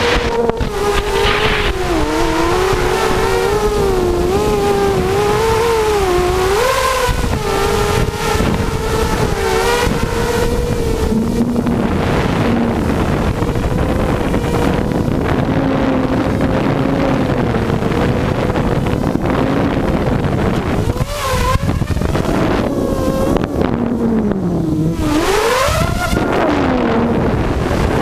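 Six Tiger MN1806 2300kv brushless motors spinning GemFan 5x3 two-blade props on a mini hexacopter, picked up by its onboard GoPro: a buzzing whine that wavers in pitch with throttle over heavy wind rush on the microphone. About three quarters of the way through, the pitch sinks and then climbs steeply, and it does so again soon after.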